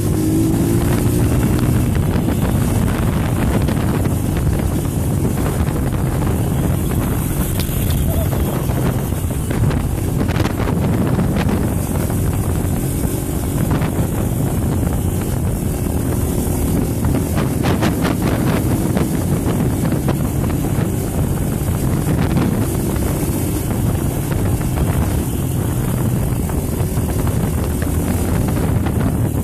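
Dirt bike engine running under way, with heavy wind buffeting the microphone as the bike moves along a dirt trail; the engine pitch rises and falls a little as the rider works the throttle.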